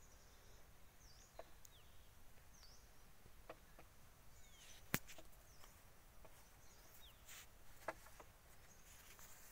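Near silence: faint outdoor ambience with scattered small bird chirps, a few faint ticks, and one sharp click about five seconds in.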